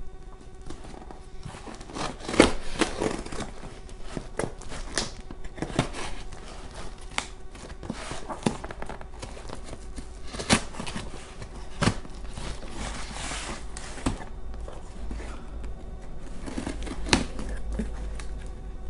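Scissors cutting the packing tape on a cardboard box, with irregular snips, scrapes and rustles as the cardboard flaps are handled and pulled open.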